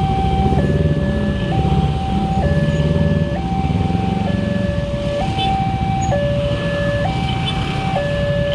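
Electronic railway level-crossing warning siren sounding a two-tone hi-lo alarm, switching between a higher and a lower tone just under once a second. Beneath it a steady low rumble of vehicle engines.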